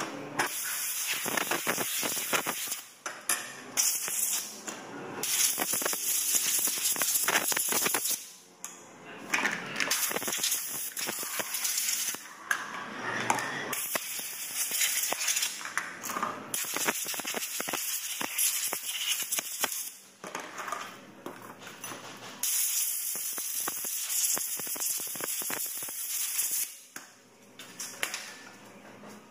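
Hand work on a Stihl MS 661 chainsaw being taken apart: clicks, knocks and clatter of its plastic cover, screws and tools. Several stretches of steady hiss, each a few seconds long, come and go through the clatter.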